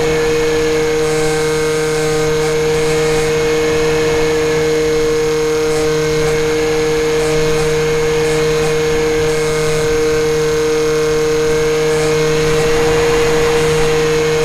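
Electric motor and propeller of an FPV model plane running at steady throttle: a steady high whine that holds one pitch, over a lower hum and a hiss of air.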